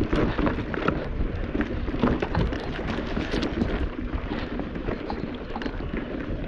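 Mountain bike rolling over a rough dirt and rock trail: a steady low rumble with many small rattles and clicks, and wind buffeting the microphone.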